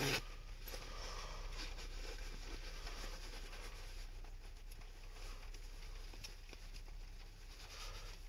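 Quiet, irregular patter of water drops on the car's body and glass, heard from inside the cabin, over a low steady hiss.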